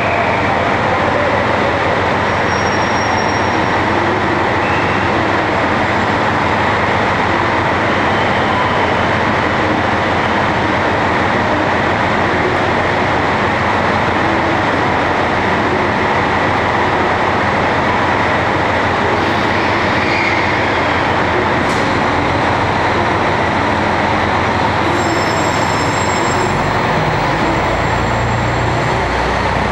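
Train noise: a steady, loud rumble and hiss that holds level throughout.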